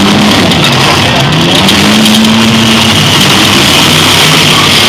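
Full-size demolition derby cars' engines revving loudly, their pitch rising, holding and falling, over a steady noisy din.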